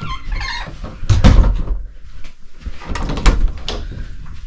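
Caravan interior door being opened and handled, with a loud knock about a second in and another about three seconds in.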